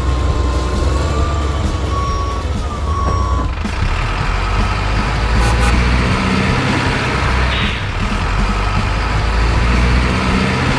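Heavy diesel truck engine sound, a loud, steady deep rumble. A wavering whistle-like tone sits over it for the first three seconds or so, and the sound turns fuller and noisier after that.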